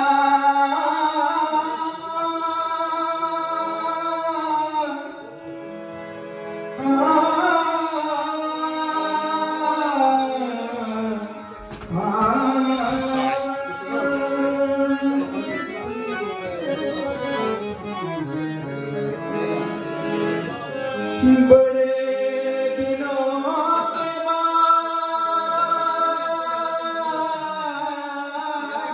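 A man singing a slow melody in long, held phrases with wavering ornaments, accompanied by a harmonium.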